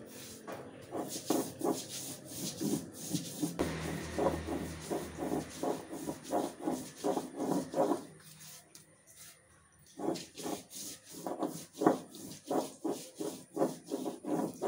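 Stone roller of an ammi (traditional grinding stone) rubbed back and forth over its stone slab, grinding a coarse paste by hand. It makes a rhythmic scraping at about three strokes a second, with a pause of about two seconds just past the middle.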